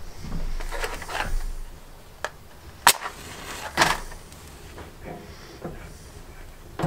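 Handling and rustling, a couple of sharp clicks, then a match struck with a short scraping flare about four seconds in to light a propane camp stove burner, and a short knock near the end as the stove knob is worked.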